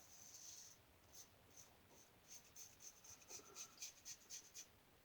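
Faint, quick scratching strokes, about three a second in the second half, over a light hiss.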